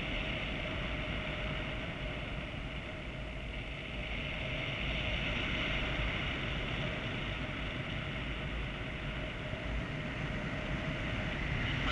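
Airflow rushing past a paraglider pilot's harness-mounted camera in flight: a steady rumble and hiss of wind on the microphone, with a faint steady whistle.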